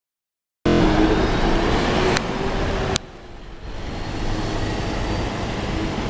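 Alexander Dennis Enviro400H MMC hybrid double-decker bus standing with its cooling fan running: a steady loud drone with a hum through it. About three seconds in it cuts off abruptly, and quieter street traffic noise follows and slowly builds.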